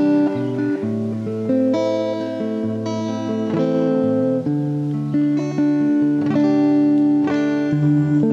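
Background music of a plucked guitar, notes changing every half second or so.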